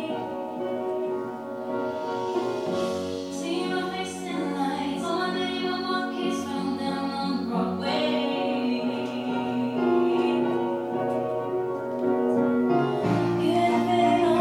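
A man singing live into a handheld microphone over accompanying music, holding long notes. The low end of the music fills out near the end.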